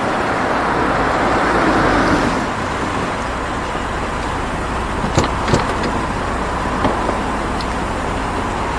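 A car drives up and pulls to a stop, its engine and tyres making a steady rushing noise that is loudest in the first two seconds. A couple of sharp clicks follow about five seconds in, the car's door latches opening.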